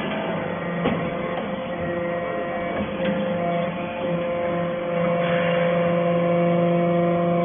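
Hydraulic baler's electric motor and pump running with a steady hum, with a couple of light knocks about one and three seconds in.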